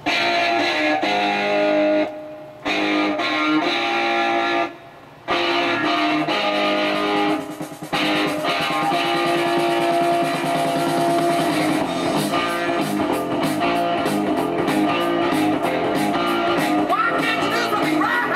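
A 33 rpm record playing through the Audiotronics 326 record player's built-in speaker: guitar music that starts suddenly, with two short breaks in the first five seconds.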